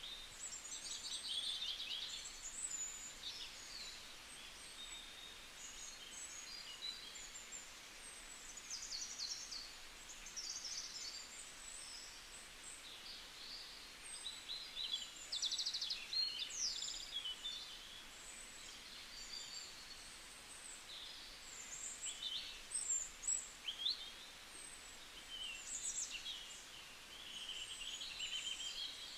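Birds chirping and trilling: many short, high calls and quick stuttering trills overlapping throughout, over a faint even hiss.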